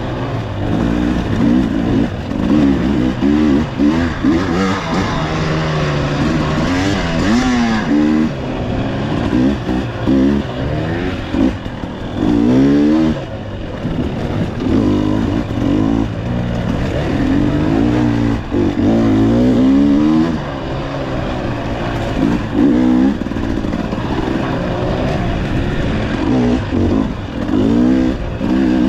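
Off-road motorcycle engine revving up and down over and over, the pitch rising and falling every second or two as the throttle is worked over rocks, roots and tight turns.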